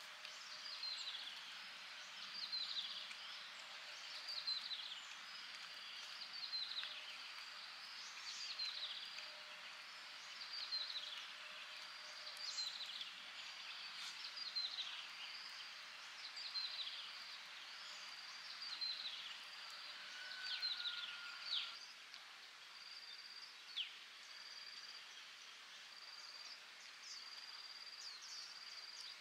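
Outdoor animal chirping: short high calls, each a quick falling sweep, repeating about once a second over a steady high trill, growing sparser in the last third.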